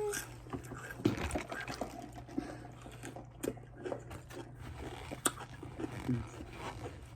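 Close-up eating sounds: chewing, with irregular wet mouth clicks and smacks, over a steady low hum.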